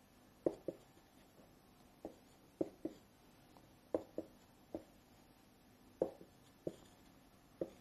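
Pen tapping and clicking on a hard writing surface while numbers are handwritten: about a dozen short, sharp taps, often in quick pairs, at irregular intervals.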